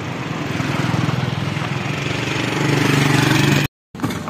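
A motor vehicle's engine running close by and growing steadily louder as it approaches, cut off suddenly near the end.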